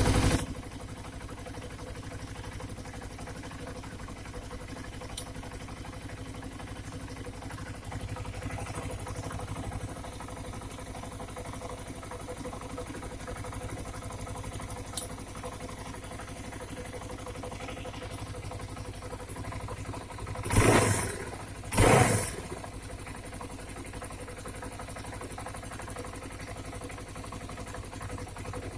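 Suzuki Djebel 250's single-cylinder four-stroke engine idling steadily, with a rare, intermittent knock that the owner cannot identify. Two short, louder bursts come about two-thirds of the way through.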